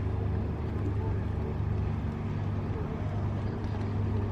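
Steady low engine drone with an even hum, holding the same pitch throughout.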